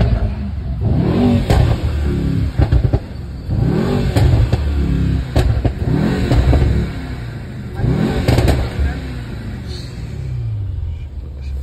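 Twin-turbo V8 of a modified Mercedes-AMG E63 S accelerating hard, heard from inside the car: the revs climb and drop again and again as it runs up through the gears, with several sharp cracks along the way.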